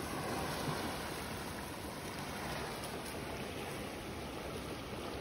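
A steady rushing noise, even from low to high pitches, with no distinct events in it.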